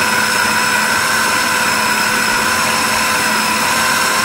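Food processor motor running steadily at one constant speed, its blade churning ground Spanish mackerel into a smooth fish paste for pempek.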